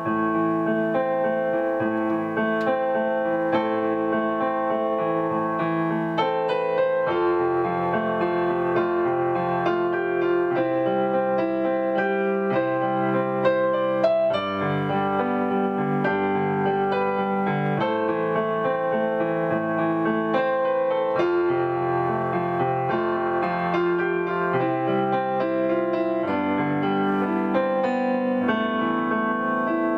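Kawai digital piano played solo: a flowing piece of held chords under a melody, at an even loudness.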